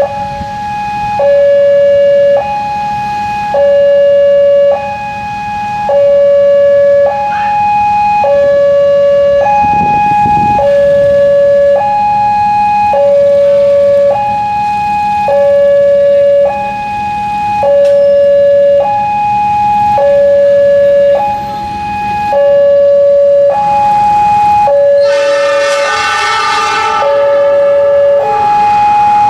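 Railway level-crossing warning siren alternating between a low tone of about 560 Hz and a high tone of about 840 Hz, each held for about a second, signalling that a train is approaching. About 25 s in, the approaching diesel passenger train's locomotive sounds its horn for about two seconds.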